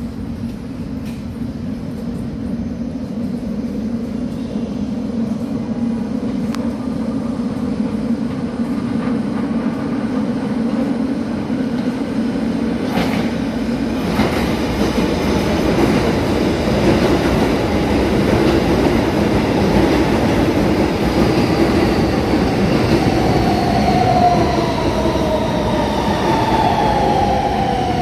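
A New York City Subway F train of R160 cars pulls into an elevated station. The rumble of its wheels on the rails grows steadily louder as it approaches. In the last several seconds, the whine of its motors falls in pitch as it brakes.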